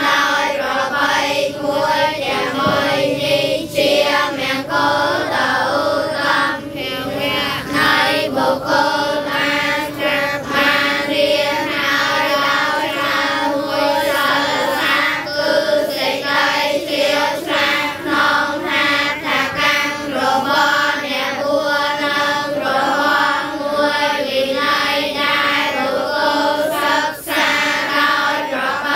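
A large group of children chanting Buddhist verses in unison: a continuous recitation, many voices held close to one steady pitch.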